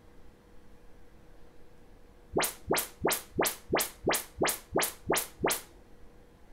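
Audyssey MultEQ XT32 calibration test sweeps played through a Martin Logan Fresco i speaker: about ten short chirps, each rising quickly from low to high pitch, repeated about three a second, starting a little past two seconds in. This is the receiver measuring the right front speaker during room-correction setup.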